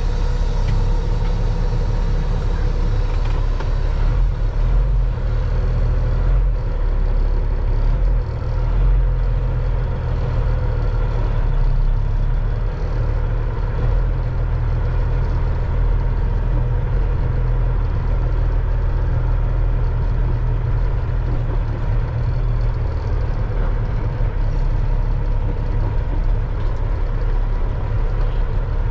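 Peterbilt 379's Caterpillar diesel engine running with a steady low drone, heard from inside the truck cab.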